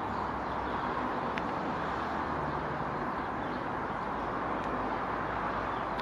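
Steady outdoor background rumble and hiss, with a single faint tap about a second and a half in: a great spotted woodpecker's bill striking a cobnut wedged in tree bark.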